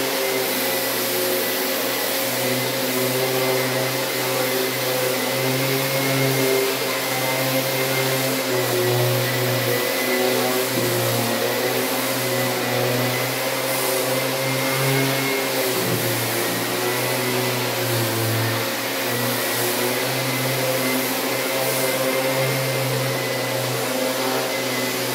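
Festool ETS 125 random orbital sander running on primed drywall patches, with the suction of a Festool CT Midi dust extractor drawing through the hose. A steady whine and hiss, its low hum wavering slightly in pitch.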